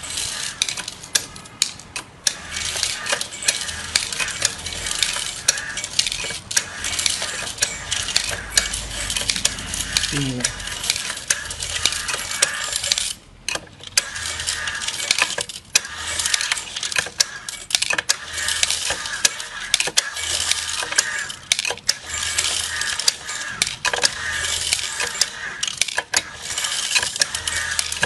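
FUMA FA-560 automatic screw feeder running: a continuous dense clatter of small metal screws rattling and clicking inside the machine and along its rail. The clatter drops out briefly twice about halfway through.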